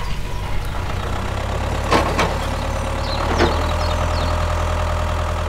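Tractor engine running with a steady low drone as the tractor pulls a cultivator, with a few sharp clicks about two seconds in and again a little later, after which a steady whine joins it.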